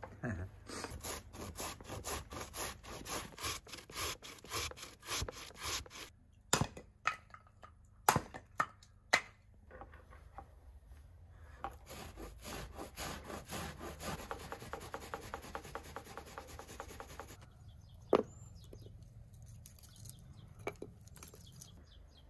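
Raw potatoes being grated on a hand grater: rhythmic rasping strokes, about two or three a second, broken by a few sharp knocks around six to nine seconds in, then a faster run of finer strokes that stops at about seventeen seconds.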